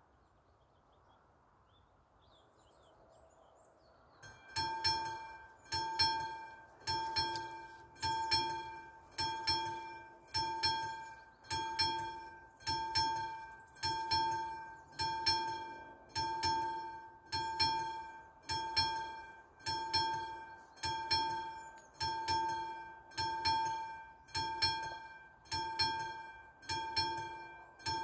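Level-crossing mechanical warning bells start striking about four seconds in and keep ringing in an even, steady rhythm a little faster than one stroke a second. This signals that the crossing has activated for an approaching train.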